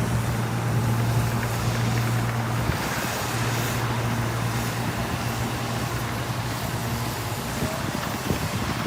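Diesel engine of heavy earthmoving equipment running at a steady pitch, with a brief dip in its hum about three seconds in.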